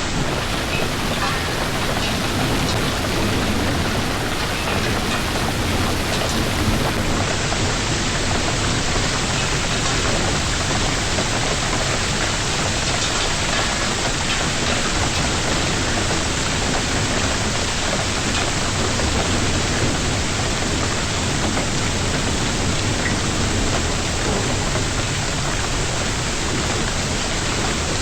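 Heavy rain and hail of a hailstorm coming down steadily, an even, unbroken hiss of drops and stones hitting surfaces.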